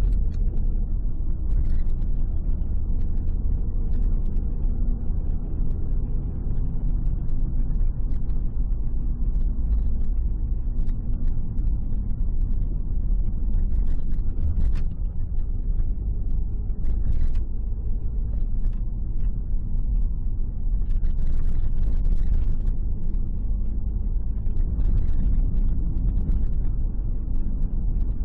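Car driving on a mountain road, heard from inside the cabin: a steady low rumble of engine and tyres, with scattered light clicks and knocks.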